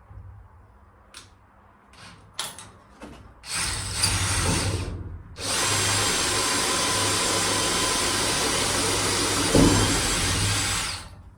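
Power drill with a 3 mm bit drilling a hole. A few light clicks come first, then a run of about two seconds, a brief pause, and a longer run of about five seconds with a single knock near its end before it stops.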